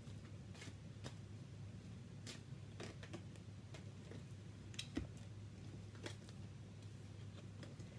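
Faint clicks and taps of a deck of cards being shuffled in the hands, over a steady low hum; one sharper tap about five seconds in.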